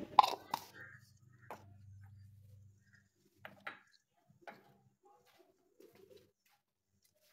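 Faint clicks and knocks from hands at a table, the sharpest pair just after the start and a few more about three and a half and four and a half seconds in, over a low hum that stops about three seconds in.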